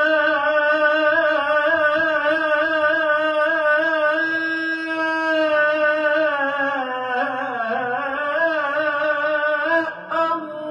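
Music: a slow, ornamented solo melody of long held notes with a wavering vibrato, dipping in pitch partway through.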